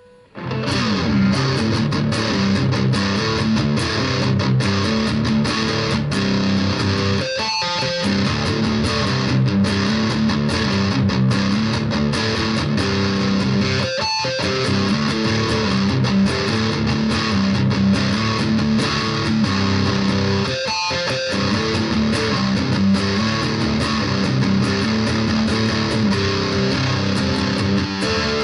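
Electric guitar through a Roland Cube Lite practice amp's distortion channel, with the bridge and neck pickups selected together, playing a heavy distorted rock-metal riff. The riff repeats about every seven seconds, with a short stop between each pass.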